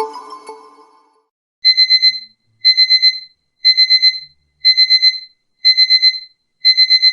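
An Itel S25 Ultra ringtone in the style of a digital alarm clock: high electronic beeps in quick groups of four, one group each second. It starts about a second and a half in, after the previous musical ringtone dies away.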